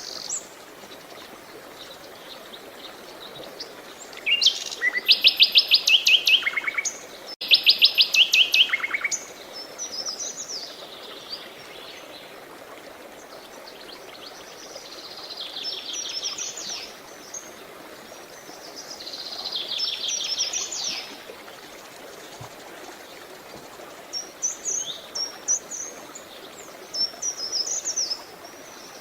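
Several birds singing: loud trilled phrases of rapid repeated notes, the strongest a few seconds in, then softer trills and scattered high chirps, over a steady faint hiss of running water.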